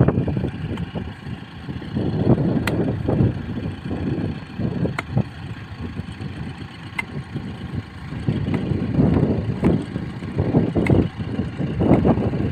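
Kubota M6040SU tractor's diesel engine running, an uneven low rumble that swells and fades every second or two. A few sharp knocks fall irregularly over it, a hoe chopping into the dried mud beside the stuck wheels.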